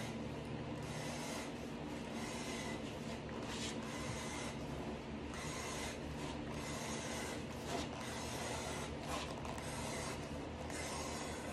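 Razor blade of a wooden strap cutter slicing a 1.5-inch belt strip from a leather hide, a steady rasping drag that dips and surges as the cutter is pulled along.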